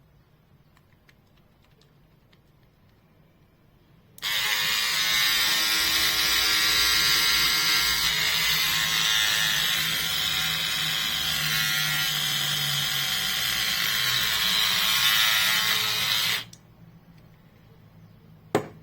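LOVPIS cordless electric hair clipper switched on about four seconds in, its motor and blades buzzing steadily for about twelve seconds before cutting off suddenly. A single sharp click comes near the end.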